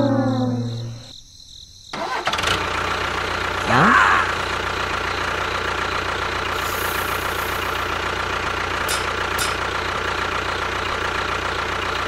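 A descending brass slide ends in the first second; then, about two seconds in, a tractor engine sound starts up, rises briefly about four seconds in, and settles into a steady run.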